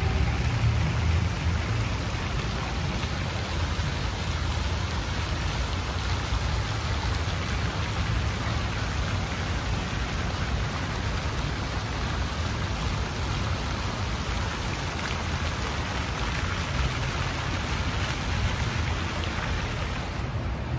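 Many fountain jets spraying and splashing into a shallow pool, giving a steady rushing hiss of falling water with a low rumble underneath.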